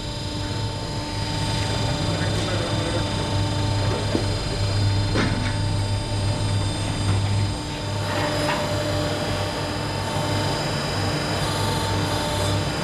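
Horizontal band sawmill running: a steady machine hum with several steady whining tones over a noisy rush, with a few faint knocks.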